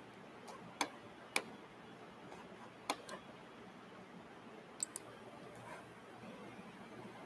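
Five faint, sharp clicks at uneven intervals, the last two in quick succession, from someone working at a desk, over a faint room hiss.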